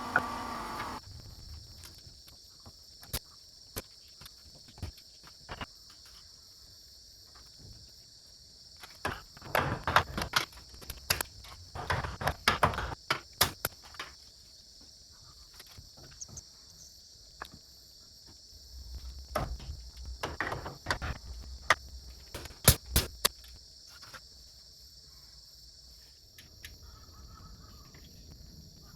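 Steady high chirring of crickets, with scattered knocks and clicks that bunch up about a third of the way in and again about two-thirds of the way through.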